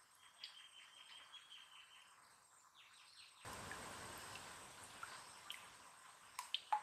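Faint outdoor ambience: scattered short bird chirps and clicks, with a steady insect-like trill in the first couple of seconds. About halfway through, a soft even hiss sets in suddenly.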